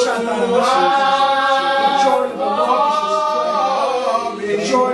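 Unaccompanied voices singing in long held phrases during prayer over someone, with no instruments.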